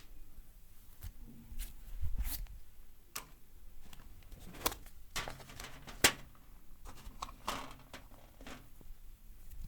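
Massage by hand on a person's head and body: irregular sharp snaps and pats with soft rubbing between them, the loudest snap about six seconds in.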